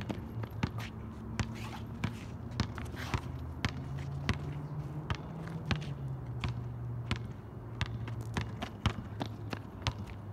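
Basketball bouncing on an outdoor asphalt court in irregular dribbles, mixed with footsteps and shoe scuffs, over a steady low hum.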